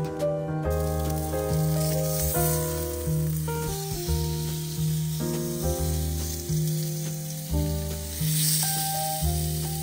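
Steaks sizzling on a charcoal barbecue grill, an even hiss that starts about a second in, under background music with a steady bass.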